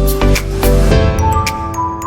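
Background music: an electronic dance track with a steady kick-drum beat for about the first second, then changing to held bell-like tones with light ticking percussion.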